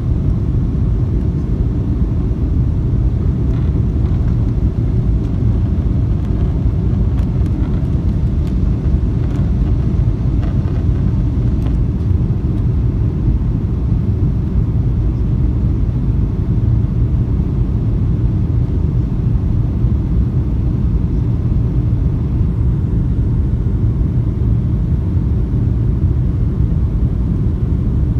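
Steady low roar inside a jet airliner's cabin in flight, heard from a window seat.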